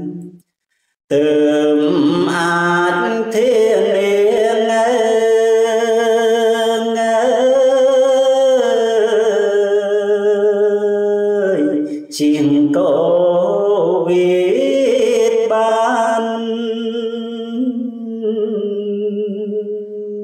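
A man chanting Khmer verse in kakagati metre in the pilap (lament) style, with long held notes that waver and slide in pitch. There is a short pause about a second in and a brief break near twelve seconds.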